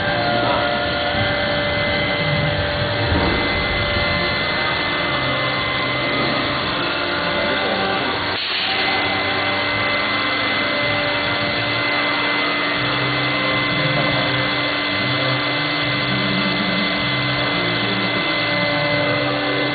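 Industrial woodworking machine and its dust extraction running steadily: a constant hum and whine of motors and suction, with a brief louder rush about eight seconds in.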